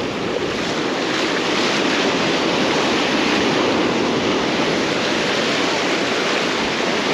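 Ocean surf breaking and washing steadily on the beach, with wind on the microphone.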